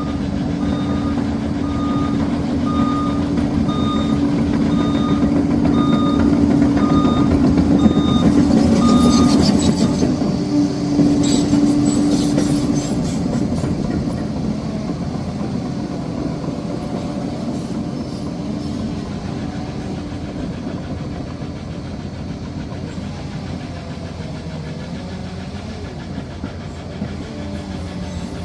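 Liebherr PR 746 crawler dozer's diesel engine running hard while its reversing alarm beeps about one and a half times a second, stopping about a third of the way in. Clanking from the tracks follows, and then the engine settles to a lower, steadier run.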